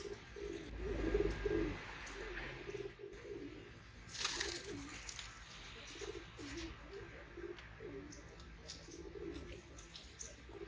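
Feral rock pigeons cooing over and over, low warbling coos overlapping one another. A short rush of noise cuts in about four seconds in.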